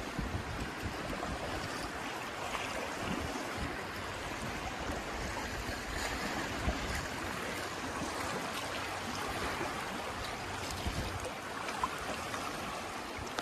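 Steady rush of river water running through a stretch of rapids, heard from a canoe in the current.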